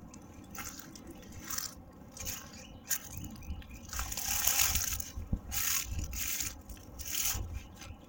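Footsteps crunching and rustling through dry fallen leaves and grass at walking pace, about one step a second, over a low rumble on the phone's microphone.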